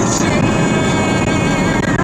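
Vehicle driving on a highway: steady road and engine noise, with music playing alongside.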